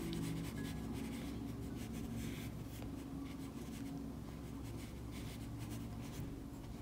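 Soft, scratchy rubbing of a flat watercolour brush stroking wet paint across watercolour paper, in a few irregular strokes, over a low steady hum.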